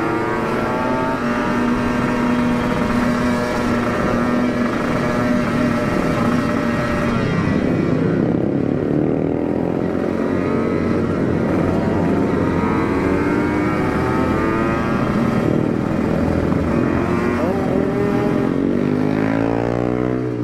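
Kawasaki Ninja motorcycle engine running hard through an Aitech aftermarket exhaust while riding. Its pitch rises and falls several times, and drops sharply near the end.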